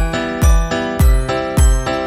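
Cheerful background music with a steady beat, a low thump a little under twice a second, under bright tinkling tones.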